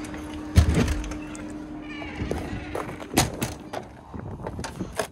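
A fish house door is pushed open with a heavy thump, followed by knocks and handling noise. About three seconds in a second thump comes, and a steady hum stops with it.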